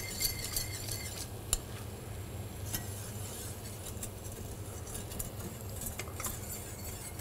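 Wire whisk stirring caramel sauce in a stainless steel saucepan. Its wires tap the pan in a quick run of metallic clicks in the first second, then give single clinks every second or so. Near the end a metal spoon clinks twice on a small plate, over a steady low hum.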